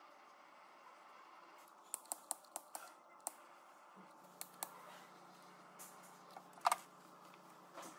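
Faint, irregular small clicks and taps of hands handling wires and a small hand tool on the wiring harness: a quick run of clicks about two seconds in, a louder one near the end. A faint steady low hum starts about halfway through.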